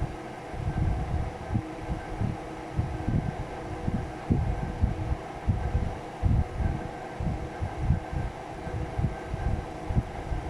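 Irregular low thumps and rumbling, several a second, over a steady hum: handling noise on the microphone as hands work inside a desktop PC case.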